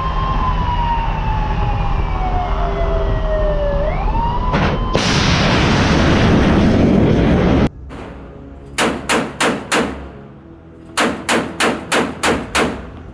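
A long tone falls slowly and then sweeps back up. A loud rushing roar of a missile launching from a warship's deck follows about five seconds in and cuts off abruptly. Then a naval deck gun fires single sharp shots in two quick runs, about five rounds and then seven, at three to four a second.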